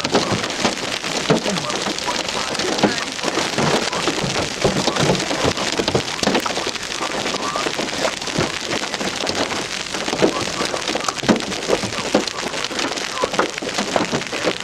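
Hailstones and heavy rain pelting a car: a dense, irregular clatter of sharp hits over a steady hiss.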